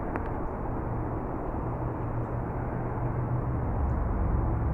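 Steady low outdoor rumble with a low hum under it, growing slightly louder near the end; no clear bird calls stand out.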